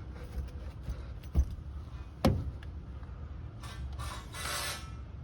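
Two sharp knocks about a second apart, the second the louder, then two short rustling scrapes near the end: a person moving over ceiling timbers in a roof space.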